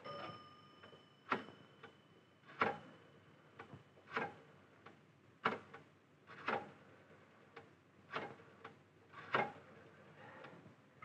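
A series of sharp clicks or knocks, about one every second or so but not evenly spaced, with a brief ringing tone at the very start.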